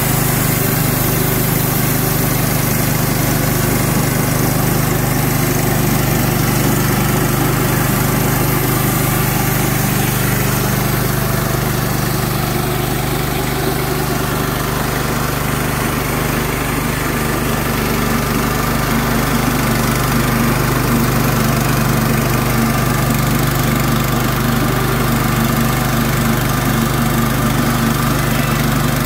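Kohler gasoline engine of a Clarke model 50 portable bandsaw mill running steadily.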